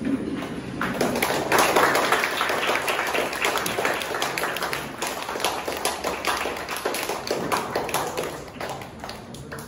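A small group applauding by hand: dense, uneven clapping that swells about a second in and thins out near the end.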